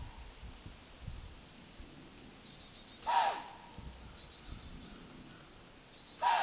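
A whitetail doe blowing: two sharp, loud snorts of air, one about three seconds in and another at the very end, each with a short whistle-like tone. It is the deer's alarm blow, a sign she has caught the hunters' scent on the swirling wind.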